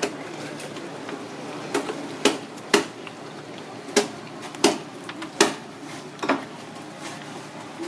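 A knife chopping onto a cutting board while a large fish is cut up: about seven sharp knocks at uneven intervals, some half a second apart, some over a second apart.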